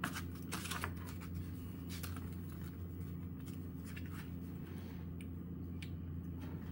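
A fork scraping and picking at a streusel-topped muffin on a paper plate: a few faint scrapes and taps, over a steady low hum.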